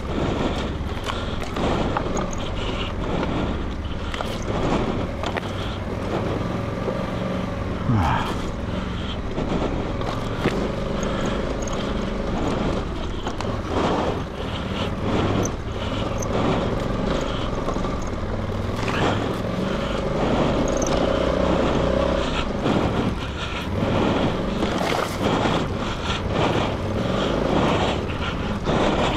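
Honda Africa Twin adventure motorcycle's parallel-twin engine running at low, fairly steady revs as the bike picks its way down a rough, overgrown dirt track, with frequent short knocks and scrapes over it.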